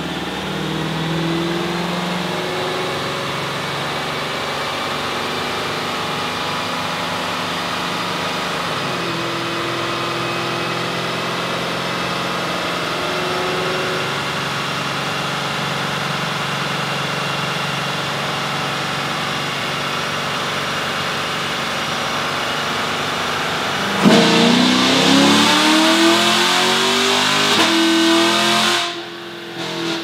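2018 Camaro SS's 6.2-litre LT1 V8, with long-tube headers, X-pipe and stock NPP exhaust on E85, running on a chassis dyno: a steady drone at part throttle for most of the time, with a faint whine climbing slowly. About six seconds from the end it jumps into a louder full-throttle pull, the engine note rising quickly, then cuts off abruptly as the throttle closes about a second before the end.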